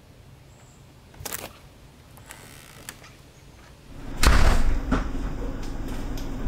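A door: a sharp click a little over a second in, then a loud, heavy thud about four seconds in as it opens. A steady low room hum follows.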